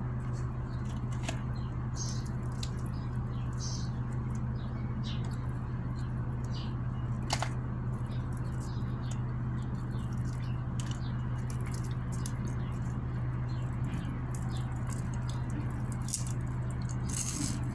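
A person eating close to the microphone: small wet mouth clicks and smacks of chewing, scattered all through, over a steady low hum.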